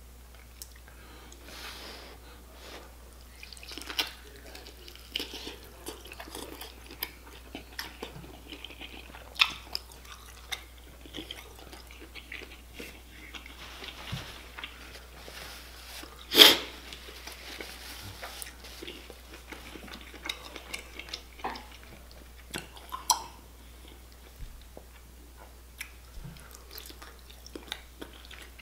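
Close-miked chewing and wet mouth smacks of someone eating deshelled seafood boil, with lobster meat in sauce, in irregular short clicks. One much louder sharp smack comes about halfway through.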